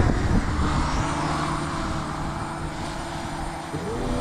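DJI Mini 4K quadcopter drone's propellers spinning in a steady buzzing whir just after spin-up, the pitch shifting upward near the end.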